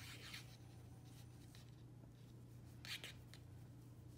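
Near silence: faint rubbing and scratching of yarn on wooden knitting needles as stitches are knitted, with one brief louder scratch about three seconds in, over a low steady hum.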